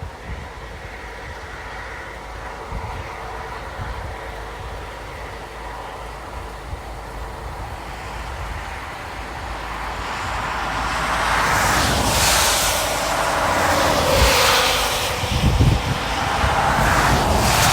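Road noise inside a moving car: a steady low rumble, with loud whooshing swells in the second half.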